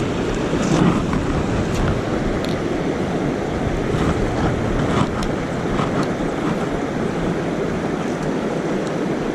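Steady rushing of flowing river water, with a few faint clicks scattered through it.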